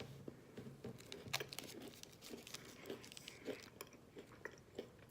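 A person chewing a bite of milk chocolate bar with caramel and crunchy biscuit, with a run of short crunches, the loudest about a second and a half in.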